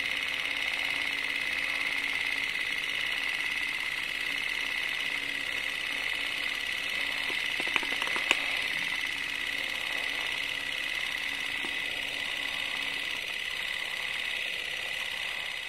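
A steady high-pitched whine that holds at one level throughout, with two faint clicks about eight seconds in.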